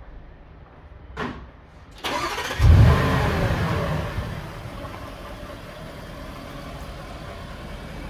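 Bentley Bentayga engine being remote-started with the car locked: a short click just over a second in, then the starter cranks about two seconds in. The engine catches with a loud flare of revs and settles to a steady idle.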